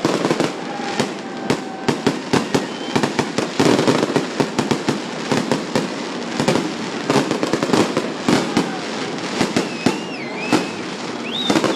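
Fireworks display going off in a rapid, continuous barrage of bangs and crackles, with high, warbling whistles near the end.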